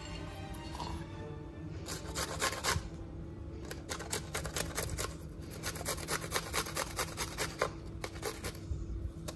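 Garlic cloves grated on a flat stainless-steel hand grater: quick rasping strokes, several a second, starting about two seconds in, with brief pauses.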